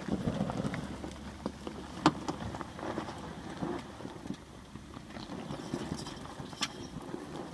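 Chevrolet Astro van's 4.3-litre V6 running under load as the van crawls over a rocky gravel slope, with stones crunching and clattering under the tyres and a sharp knock about two seconds in and another near the end. Mixed in is the noise of a linkage bar rubbing on the main pulley, which the owner puts down to worn-out motor mounts.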